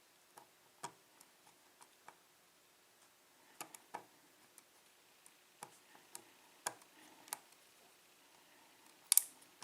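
Scattered small metallic clicks and taps from a Schlage pin-tumbler lock cylinder being handled and unscrewed for disassembly, with a couple of sharper clicks near the end.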